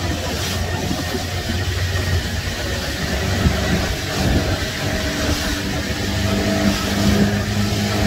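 Small motorboat's engine running steadily under way, its hum growing a little stronger near the end, over the rush of water past the hull.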